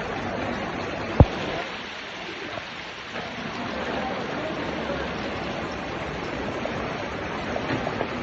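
Heavy rain pouring down in a steady hiss. A single sharp thump about a second in is the loudest sound.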